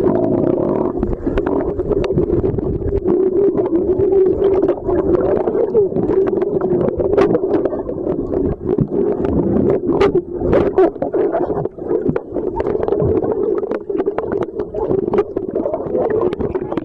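Muffled underwater noise picked up by a submerged camera: a steady, slightly wavering drone with a low rumble and many scattered clicks and crackles.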